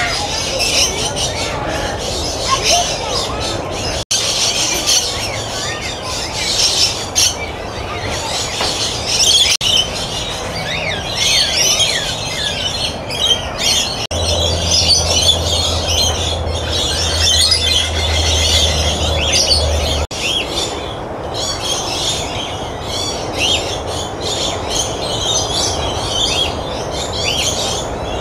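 A dense chorus of many small birds chirping and chattering at once, with quick high calls overlapping constantly over a steady background noise. A low steady hum sits beneath it for a few seconds in the middle.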